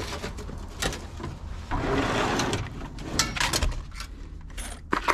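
Clicks, knocks and a scraping rustle of parts being handled during hands-on work, over a low steady hum. The longest rustle comes about two seconds in.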